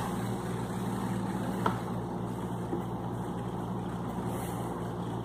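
Steady low hum with an even hiss: quiet room tone under a wordless pause. There is one soft click about a second and a half in.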